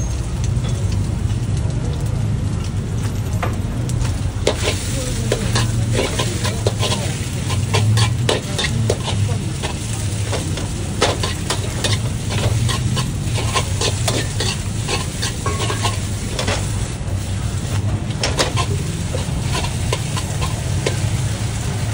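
Metal wok spatula scraping and clanking against a wok as egg and wide rice noodles for pad see ew are stir-fried, with many short scrapes over steady sizzling. Under it runs the steady low rumble of a high gas flame.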